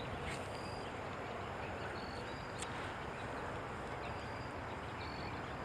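Quiet outdoor background hiss with several short, high, single-pitched chirps scattered through it and one sharp click near the middle.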